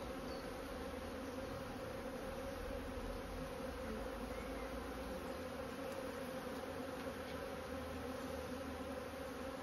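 A mass of honeybees buzzing in a steady, unbroken hum around an opened hive. It is the sound of a defensive colony, agitated by being moved into a new hive.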